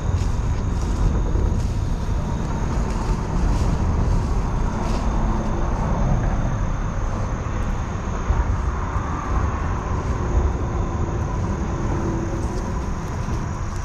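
Steady rumble of highway traffic.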